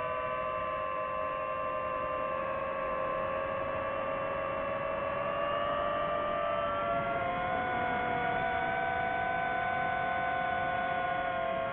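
DJI FPV drone's motors and propellers whining with two close, steady tones that drift slowly in pitch; the pitch and level rise somewhat about halfway through.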